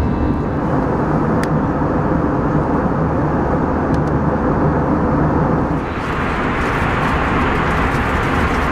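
Steady cabin noise of an Airbus A321 in flight: the drone of the jet engines and rushing air. About six seconds in it turns brighter and hissier.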